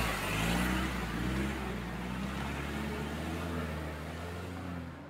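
Off-road 4x4's engine revving and easing off as it works through mud, its pitch rising and falling under a steady hiss. The engine is loudest at the start and fades gradually.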